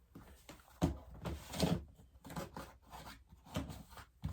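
Fidget toys being handled and put back in a drawer: a string of irregular soft knocks and rubbing.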